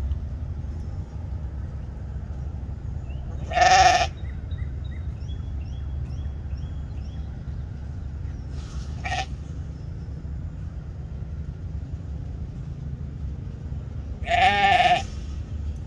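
Sheep bleating: two loud bleats, each under a second long, about four seconds in and again near the end, with a short fainter bleat midway. Small bird chirps sound in the background.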